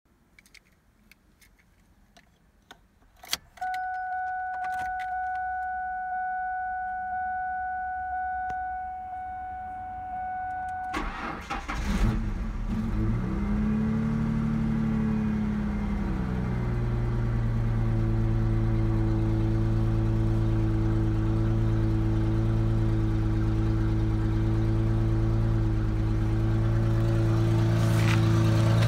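Keys jangling, then the car's warning chime dinging over and over. About eleven seconds in, the 2004 Ford Mustang's 3.8-litre V6 cranks and catches, its revs flare up and fall back, and it settles into a steady idle.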